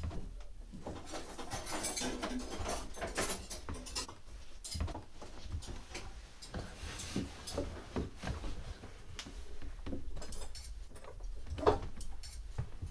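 Kitchen handling sounds: scattered clinks and knocks of dishes and cutlery and a drawer being worked, with a louder knock near the end.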